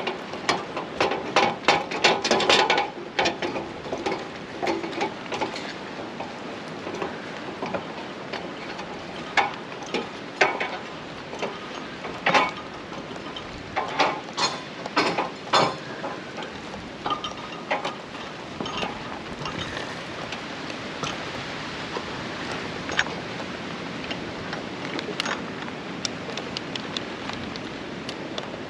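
Climbing an aluminium ladder: irregular clanks and knocks of gloved hands and boots on the metal rungs, with clinks of metal climbing gear, in clusters near the start and again in the middle, thinning out towards the end. A steady hiss runs underneath.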